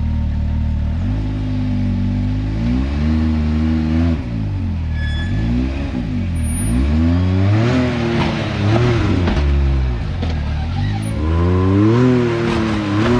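Side-by-side UTV engine revving up and falling back over and over in throttle bursts while the machine works its way up a steep rock ledge, with a higher whine over the last couple of seconds.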